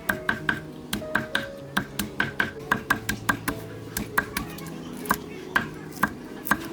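Kitchen knife chopping on a cutting board in quick, sharp taps, about three to four a second, slowing and thinning out over the last few seconds, with background music.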